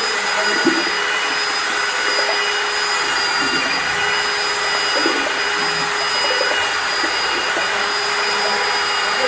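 Electric grinder running continuously at a steady speed: a constant high motor whine over a hiss, with no change in speed.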